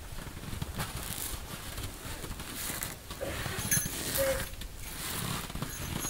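Heavy canvas of a Sibley bell tent rustling and scraping as the tent is pushed up on its centre pole, with scattered soft knocks and two short faint squeaks in the middle.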